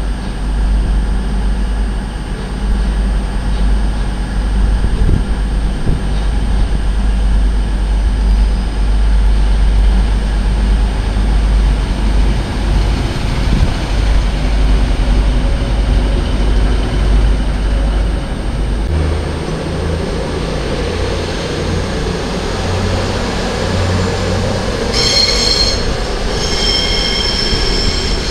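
Diesel train running at a station platform with a deep, steady engine rumble that changes character about two-thirds of the way through. Near the end, a high-pitched metallic squeal of several tones sets in.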